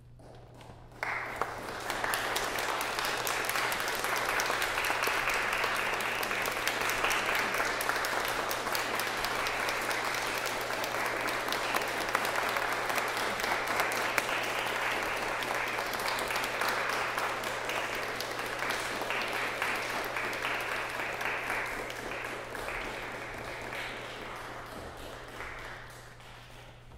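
Audience applauding: the clapping starts about a second in, holds steady, then thins out and dies away near the end.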